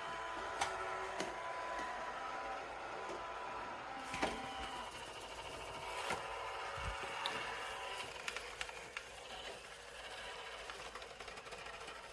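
iRobot Roomba j7+ robot vacuum running, a steady motor whir with a few high fixed tones, broken by scattered clicks and knocks.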